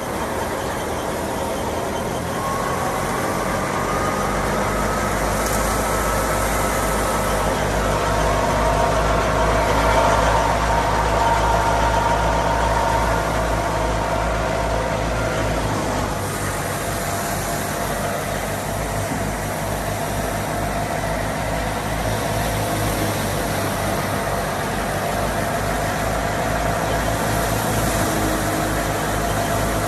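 Fiat 480 tractor's diesel engine running steadily, with a thin whine above the engine note in the first half.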